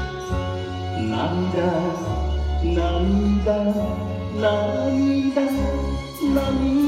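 Enka backing track playing an instrumental passage: a wavering, sliding melody over a steady bass line.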